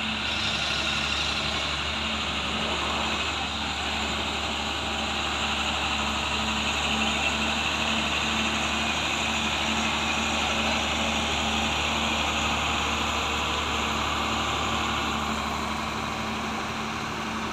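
Heavy diesel truck engine running steadily, with a regular low throb under it.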